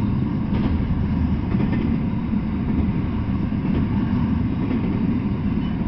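Double-stack intermodal freight train rolling past at speed: a steady low rumble of steel wheels on rail, with a few faint clicks.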